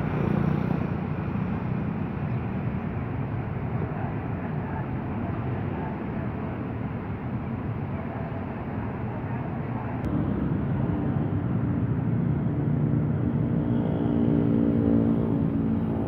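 Diesel locomotive's engine running as the train approaches slowly, a steady low rumble. The engine's hum grows a little louder and clearer near the end.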